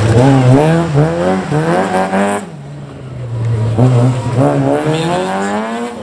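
Rally car engine revving hard as it powers through a corner, its pitch climbing in repeated surges through the gears. The note drops away about two and a half seconds in, then rises again through more surges.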